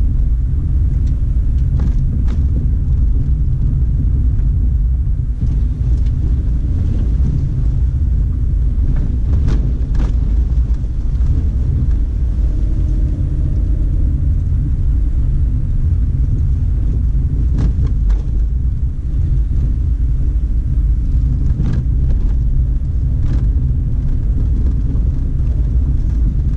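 A car driving along a dirt track: a steady low rumble of engine and tyres, with a few sharp knocks scattered through.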